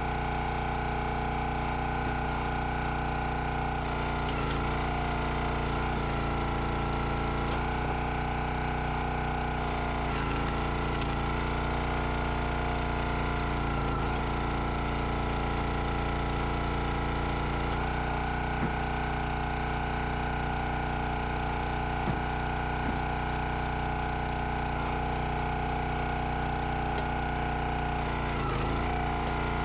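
Countyline hydraulic log splitter's gas engine running steadily at speed. Its pitch dips briefly a few times as the splitter works, and there are a few sharp knocks of wood in the second half.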